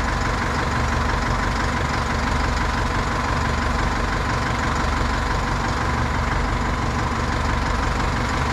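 Wheel loader's diesel engine idling steadily, with a steady high whine over the low rumble.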